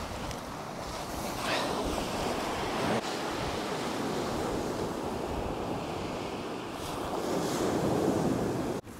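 Surf breaking and washing up a shingle beach, with wind buffeting the microphone; the wash swells louder near the end.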